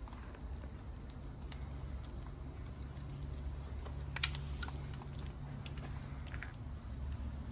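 Steady high-pitched chirring of crickets over a low steady hum, with a few small clicks, the sharpest about four seconds in.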